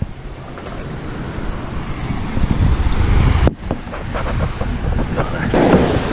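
Wind buffeting the microphone, a heavy low rumble, over surf washing up on the sand. A few light clicks come in the second half.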